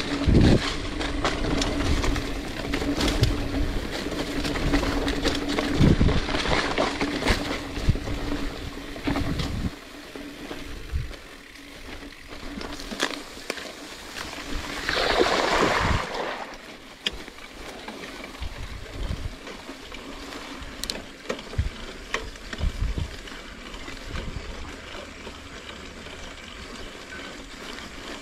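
Mountain bike ridden fast down a dirt singletrack: the tyres rumble, the bike rattles with sharp knocks over bumps, and wind buffets the microphone. Just after halfway, tall grass swishes against the bike for about a second. After that the riding goes quieter, with scattered clicks and rattles.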